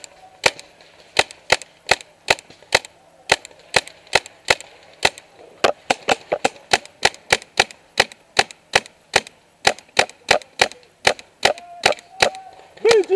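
BT-4 Assault paintball marker firing shot after shot in a steady semi-automatic string, about three sharp pops a second.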